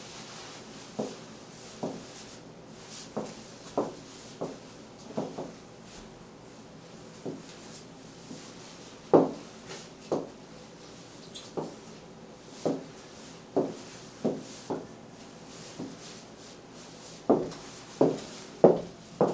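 New high-heeled shoes stepping on a hard floor: a hollow knock with each step, irregular at roughly one a second, with a run of louder steps near the end.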